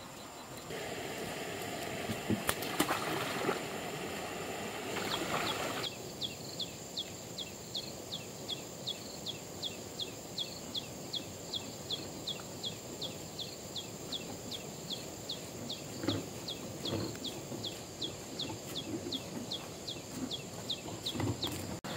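Rural outdoor ambience: for the first few seconds a rustling, splashy noise with a few knocks, then a bird repeating a short falling chirp about two to three times a second over a steady high insect whine. Faint footsteps of sandals on a concrete path come in near the end.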